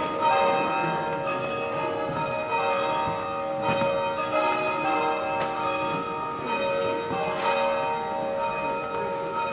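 Church bells ringing, with strikes a few seconds apart whose tones ring on and overlap.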